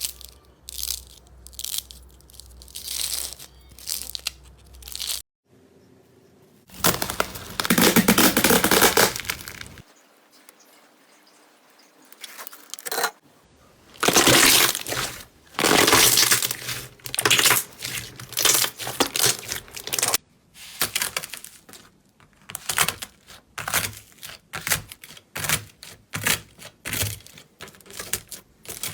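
Slime being squeezed and pressed by hand, making trains of sharp crackly clicks and several longer loud noisy stretches. The sound changes abruptly a few times, with a quieter stretch a little before the middle.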